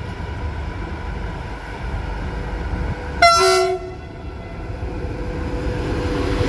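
A train gives one short horn blast about three seconds in, the loudest sound here, over a steady railway rumble. After it the rumble of a train grows steadily louder.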